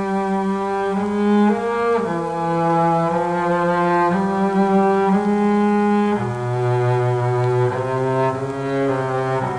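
Film score music on low bowed strings: slow, held notes in several parts, moving to new notes about once a second.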